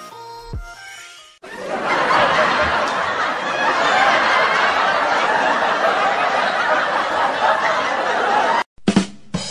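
Background music, then from about a second and a half in a crowd laughing, a laugh-track sound effect, which cuts off abruptly near the end.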